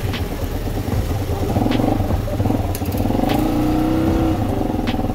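A motor vehicle's engine running steadily, with a slight rise in revs about three seconds in, and a few sharp clicks on top.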